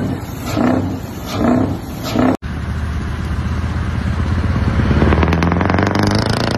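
Scania V8 truck engine revved in repeated quick blips through tall straight exhaust stacks, about one rev a second. After a sudden cut, a Scania tractor unit's engine pulls away under load, growing louder and rising slowly in pitch.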